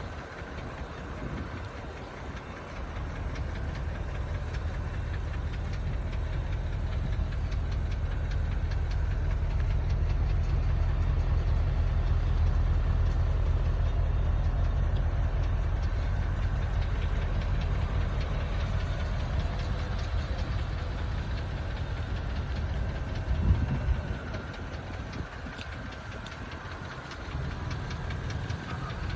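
Porsche Cayenne engine running with a fast, steady knock from inside the engine. The sound grows louder over the first several seconds, then eases off, with a single thump near the end.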